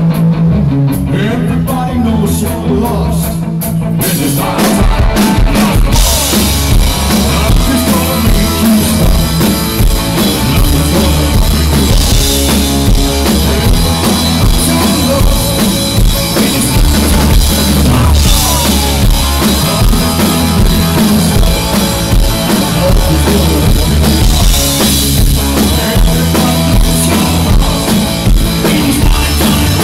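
Rock band playing live: electric guitars, bass and drum kit, with a singer. The first few seconds are sparser, then the full drum kit with cymbals comes in about four seconds in and the band plays on at full volume.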